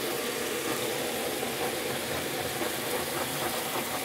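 Handheld gas kitchen torch burning with a steady hissing rush as its flame is played over squid frying in a pan, under the faint sizzle of the oil. The torch is adding heat because the pan is not hot enough.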